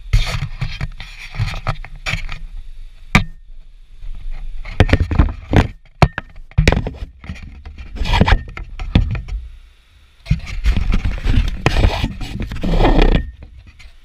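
Action camera handled against a wooden railing: irregular scraping and knocking of the housing on the wood, with a few sharp clicks and a short lull near the end.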